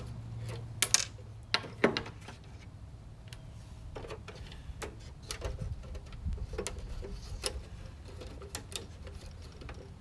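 Scattered small clicks and taps of plastic and metal gauge-cluster parts being handled, a few louder snaps in the first two seconds and softer ticks after.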